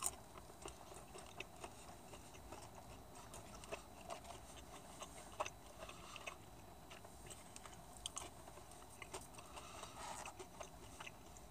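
Faint chewing of chicken nuggets, with scattered soft clicks and small crackles from the mouth.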